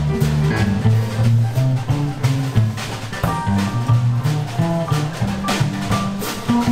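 A jazz band playing: a plucked double bass steps through low notes under a drum kit keeping time, with higher melody notes over the top.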